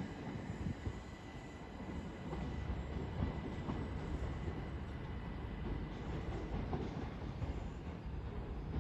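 Southeastern Class 375 Electrostar electric multiple unit pulling out of the station: a steady low rumble with faint scattered wheel clicks.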